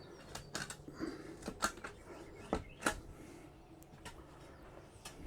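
A digging tool scraping and knocking in the soil of a post hole: a dozen or so short, irregular scrapes and knocks.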